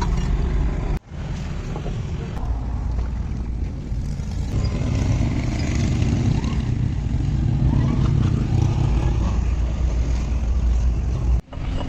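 A steady, low engine rumble, broken by brief cut-outs about a second in and near the end.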